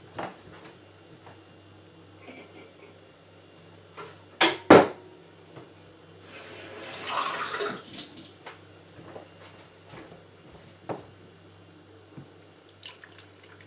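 Two sharp knocks of a drinking glass set down on a hard surface about four and a half seconds in, then water poured into the glass for about a second and a half, with a few light clicks around it.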